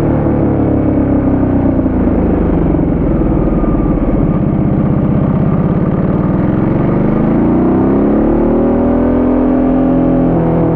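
Ducati Multistrada 1200S's V-twin engine while riding through bends: the engine note falls as the bike slows for about four seconds, runs low and steady, then rises as it accelerates from about seven seconds in, and dips briefly near the end.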